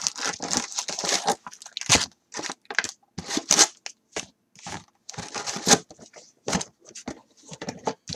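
Wrapped trading-card packs crinkling and rustling as they are lifted out of a cardboard hobby box and stacked, a quick irregular run of short crackly scrapes and rustles.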